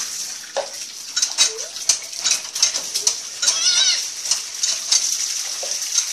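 Water splashing in a plastic tub under the running spout of a hand pump, with metallic clinks from the working pump and a child's high, wavering squeal about halfway through.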